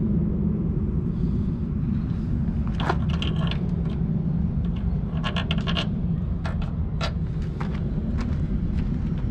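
Compact excavator's diesel engine running steadily, with sharp metal clanks and short squeaks about three seconds in, a cluster around five to six seconds, and another at seven seconds.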